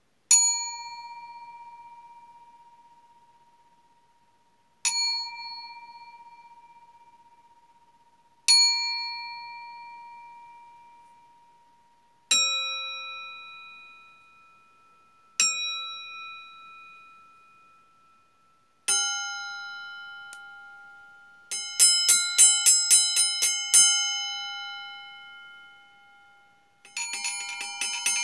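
Stainless steel bowls struck and left to ring, each tone fading slowly. There are three strikes on one bowl, two on a higher-pitched bowl and one on a lower bowl, then a quick run of a dozen or so strikes about two-thirds through and a fast, continuous flurry near the end.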